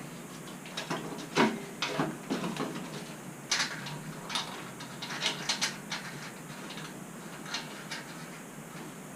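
Irregular clanks and clicks of metal frame parts being handled and shifted into position, a dozen or so sharp knocks, some in quick pairs, the loudest about a second and a half in.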